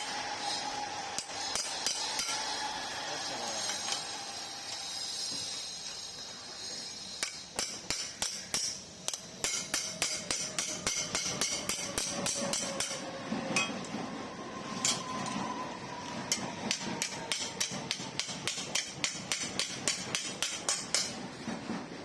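Hammer blows on metal, scattered at first and then falling into a fast, steady run of about three strikes a second, as in panel or parts work on a motorcycle restoration.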